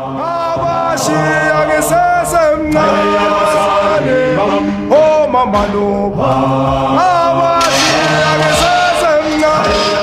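A group of voices chanting a song together, holding notes that bend at the ends of phrases over steady low notes.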